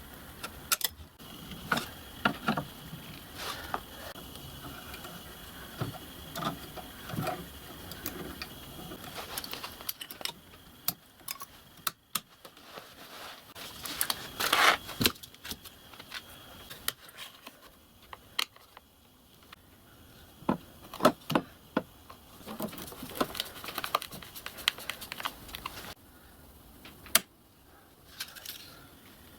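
Irregular clicks, taps and clatter of hands handling tools and parts, with a few louder knocks and a faint steady high whine in the first half.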